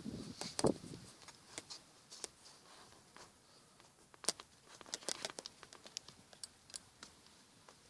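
Irregular small clicks and crinkling handling noises, with a few louder knocks in the first second.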